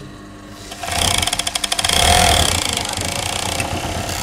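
Electric sewing machine starting up about a second in and stitching at speed, its needle mechanism making a rapid, even clatter over a motor hum.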